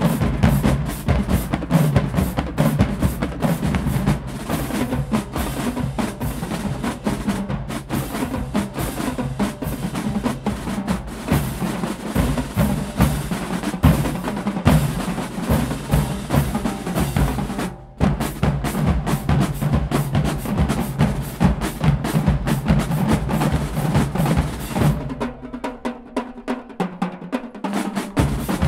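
Marching band drumline playing a dense, continuous cadence on snare, tenor and bass drums. There is a momentary break about two-thirds of the way through, and near the end the bass drums drop out for a few seconds while the snares keep playing, then come back in.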